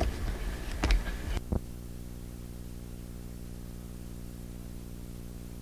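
A few brief knocks and rustles end in a sharp click about a second and a half in, as the recording cuts off. Then a steady electrical hum with a stack of even overtones runs through a blank gap in an old home-video tape transfer.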